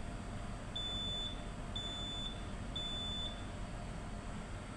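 Three short, high electronic beeps, evenly spaced about a second apart, each lasting about half a second, over a steady low hum.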